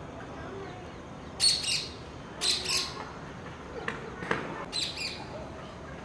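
Rose-ringed parakeet giving harsh, high screeching calls: three bursts, each a quick double note, spaced over a few seconds.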